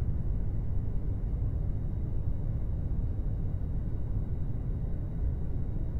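Steady low rumble of an airliner cabin in flight: even engine and air noise, with no distinct events.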